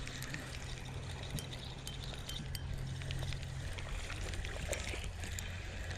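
A steady low hum, one tone of it stopping a little over halfway through, with scattered small clicks and ticks.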